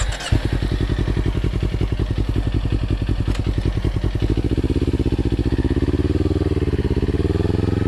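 Kawasaki Ninja 250 parallel-twin engine fitted with an aftermarket exhaust, starting and catching right at the beginning, then idling with a steady pulsing beat. From about four seconds in the engine note steadies and its pitch wavers up and down a little.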